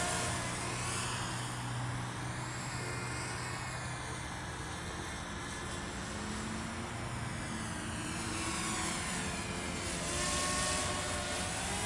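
Walkera F210 racing quadcopter's motors and propellers whining, the pitch rising and falling in arcs as it swoops and passes overhead, with a louder pass near the end.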